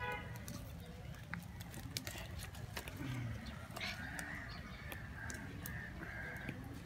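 Small twig fire crackling with many sharp pops as whole chickens are held in it to singe the skin. A faint drawn-out honking call sounds through the second half.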